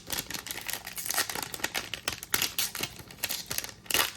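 Plastic trading-card pack wrapper being torn open and crinkled by hand, a continuous run of crackles and rips with a louder rip near the end.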